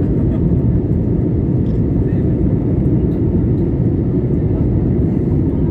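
Airliner cabin noise in cruise flight: the steady low rumble of the jet engines and airflow heard from inside the passenger cabin.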